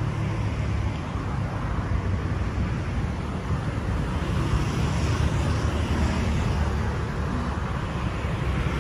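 Steady road-traffic noise: an even low rumble with a hiss above it, with no single event standing out.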